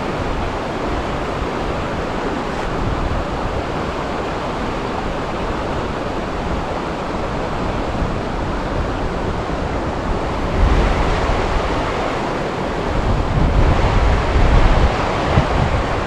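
Steady rush of a high-running trout stream mixed with wind on the microphone. Strong low buffeting from wind gusts comes twice in the later part.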